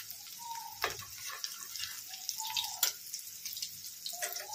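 Breaded chicken nuggets shallow-frying in hot oil in a pan: a steady sizzle with scattered sharp pops and crackles from the bubbling oil.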